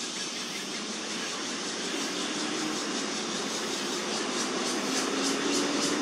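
Steady background traffic noise, with a rapid pulsing high buzz that grows stronger in the second half and a faint low hum coming in twice.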